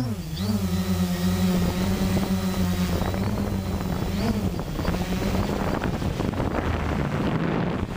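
FreeX MCFX-01 quadcopter's motors and propellers humming steadily at one pitch, with small rises and dips as the throttle shifts about half a second and about four seconds in; wind noise on the microphone.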